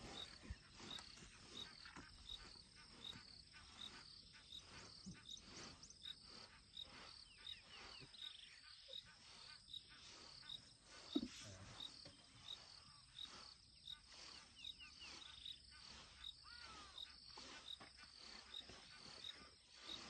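Faint insect chirping, a high-pitched pulse repeating evenly about twice a second, with a single brief louder low sound about eleven seconds in.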